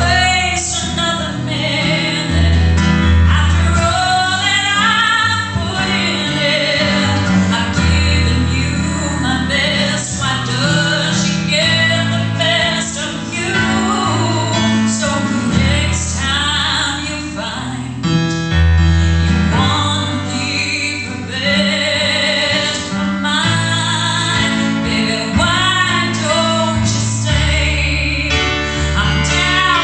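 A woman singing a slow song live into a microphone, her held notes wavering with vibrato, accompanied by guitar and keyboard.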